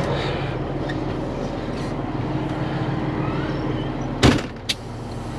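Engine running steadily at a low hum, with two sharp knocks about half a second apart near the end.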